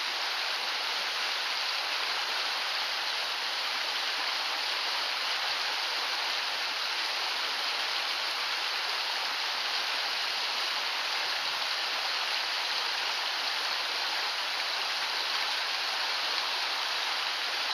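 Small rocky trout creek rushing steadily over a shallow riffle.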